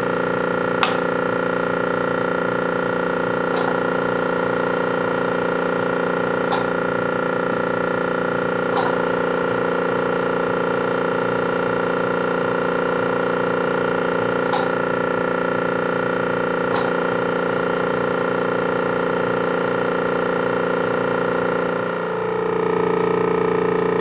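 Bailey MSV-25T vacuum pugmill running, its motor and drive giving a steady hum of several held tones while it extrudes clay. A few sharp faint clicks come every two to three seconds, and the hum shifts in pitch about two seconds before the end.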